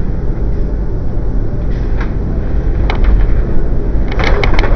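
Road and engine noise inside a moving car's cabin at highway speed, a steady rumble heavy in the low end. One sharp click about three seconds in and a quick run of three or four clicks near the end.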